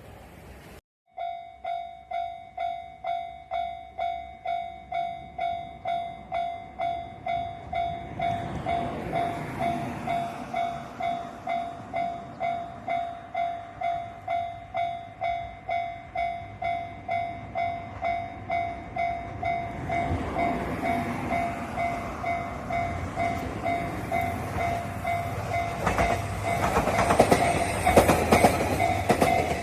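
Japanese level-crossing alarm bell ringing in rapid, evenly repeating electronic dings, starting about a second in. A diesel railcar approaches, and its running noise builds under the bell. The train passes over the crossing near the end, with its wheels clattering loudest there.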